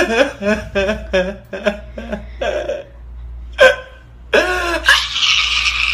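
A man crying: a quick run of short sobs, then a louder, drawn-out wail over the last second and a half.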